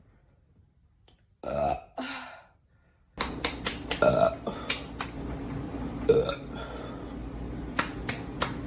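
A woman burping several times: two short burps about a second and a half in, then more burps among a run of sharp clicks over a steady hiss that starts about three seconds in.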